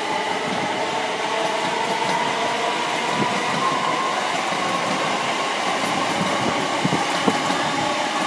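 c2c Class 357 Electrostar electric multiple unit pulling away past the microphone, its traction motors giving a faint whine that rises slightly in pitch in the first couple of seconds over steady wheel and rail noise.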